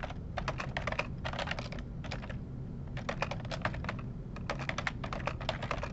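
Typing on a computer keyboard: quick runs of key clicks, broken by two short pauses.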